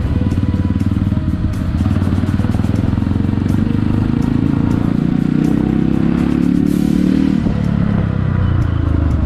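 Honda CRF150L trail bike's single-cylinder four-stroke engine running on the move, its revs rising in the middle and dropping back about seven seconds in.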